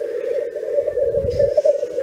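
Chorus of male black grouse giving their continuous bubbling, dove-like rookooing display song at the lek.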